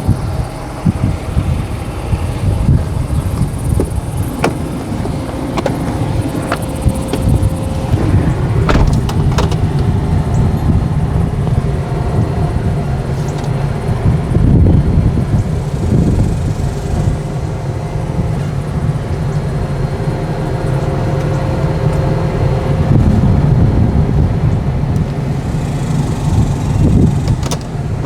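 A vehicle engine running steadily with a heavy low rumble, with a few sharp clicks and knocks along the way.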